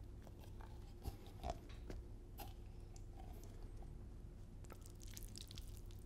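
Close-miked wet food sounds: a few soft taps and squishes in the first two and a half seconds, then a cluster of fine crackles near the end.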